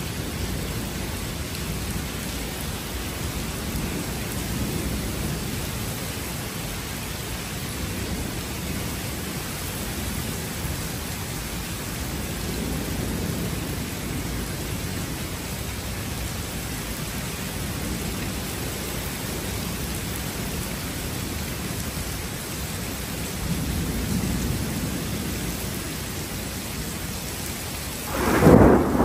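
Steady rain with thunder rumbling low several times, then a loud, sudden thunderclap near the end.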